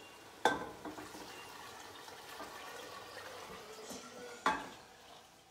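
Chicken stock being poured into a soup pot: a steady pour of liquid, with two sharp knocks, one about half a second in and one near the end.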